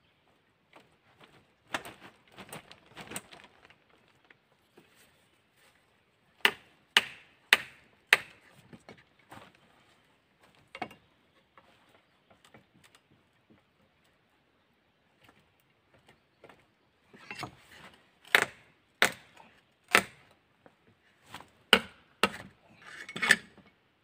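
Sharp knocks of a hatchet striking the head of a multifunction shovel, driving it under a nail head in a log post. There are a few light knocks early, then four hard strikes about half a second apart, and later a run of six or so strikes.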